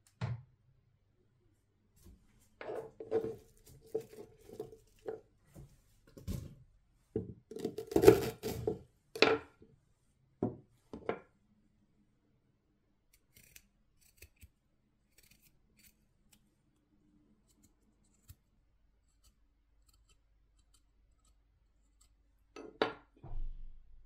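Kitchen handling sounds from hands working at a counter: a run of short clicks, knocks and rustles in the first half, loudest about eight seconds in, then a long stretch of near quiet. Near the end come a few quick scrapes from a spoon peeling the skin off fresh ginger.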